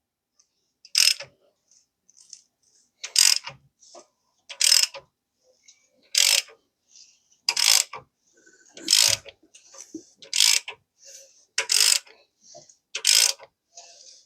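Ratchet wrench on the crankshaft bolt clicking in nine short strokes, about one every second and a half, as the supercharged 5.4-litre V8 is turned over by hand.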